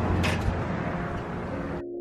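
Wind buffeting the microphone, a steady rumbling rush, with a brief sharp click about a quarter second in. It cuts off suddenly near the end as music with held notes begins.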